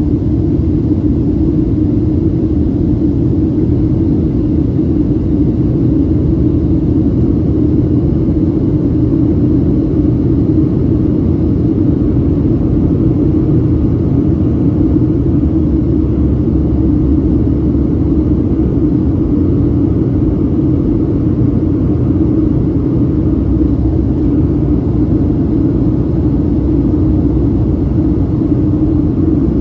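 Steady cabin noise of a Boeing 737-700 in flight after takeoff: a constant low engine drone with a strong hum, mixed with the rush of airflow, heard from a seat over the wing.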